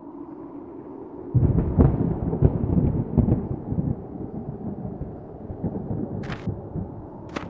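Thunder: a crackling rumble that starts suddenly about a second and a half in and dies away over a few seconds, over a low steady drone. Two sharp clicks come near the end.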